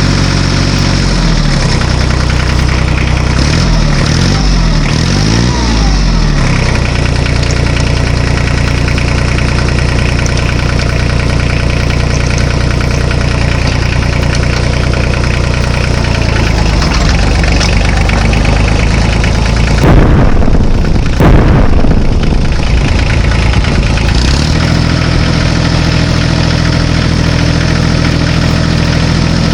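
Tractor-style engine running steadily at idle. Its pitch wavers and glides a few seconds in, and again about two-thirds of the way through, where there are two louder revs.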